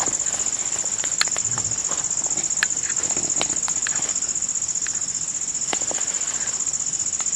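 Steady high-pitched trill of forest insects, pulsing rapidly without a break, with scattered small clicks and snaps close by.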